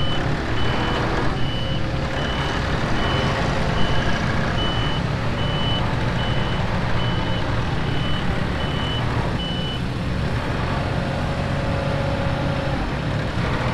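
Schaffer mini articulated loader's engine running steadily while its back-up alarm beeps at a single pitch a little over once a second as the loader reverses; the beeping stops about ten seconds in and the engine keeps running.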